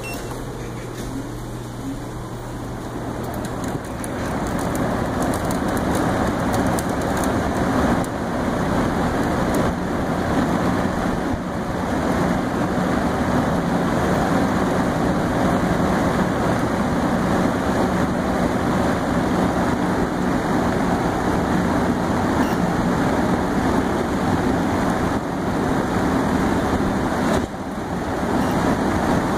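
Alugen 6K-I ST evaporative air cooler's fan blowing, a steady rush of air that grows louder over the first few seconds as it speeds up, then holds level, with a brief drop and recovery near the end.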